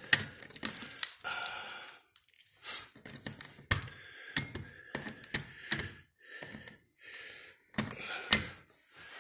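A series of irregular sharp clicks and thunks, some close together and some a second or more apart, with a louder pair near the end.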